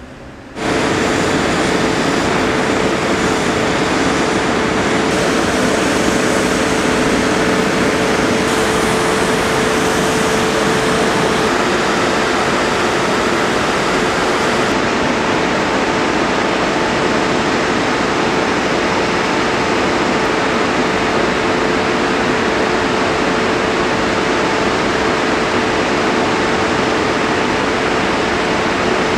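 Steady jet-aircraft engine noise on a flight line: an even roar with a constant whine. It starts suddenly about half a second in.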